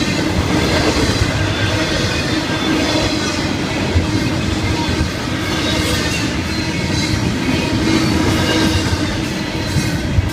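Double-stack intermodal freight cars rolling past at speed: a loud, steady rumble and clatter of steel wheels on the rails, with a steady high tone running through it.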